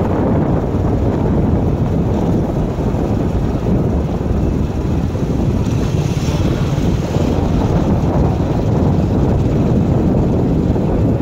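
Loud, steady wind buffeting the phone's microphone, a low rumbling rush with no break.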